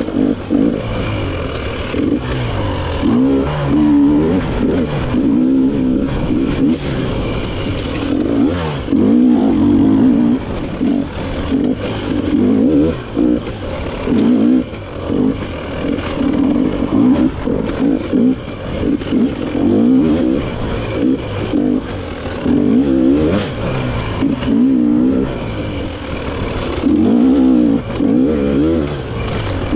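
Dirt bike engine revving up and down constantly as the throttle is worked on and off through tight turns, with scattered knocks and clatter from the bike over rough ground.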